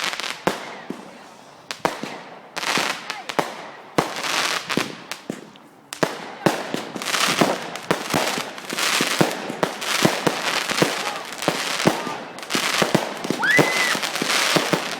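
Fireworks going off: sharp bangs and crackles, a few at a time at first, then coming thick and fast from about six seconds in, with a short whistle near the end.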